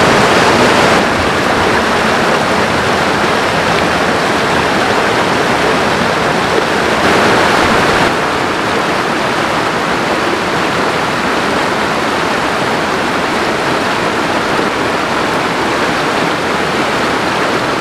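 Rocky creek water rushing over stones, a steady, loud rush of noise that shifts slightly in level about a second in and again around seven and eight seconds in.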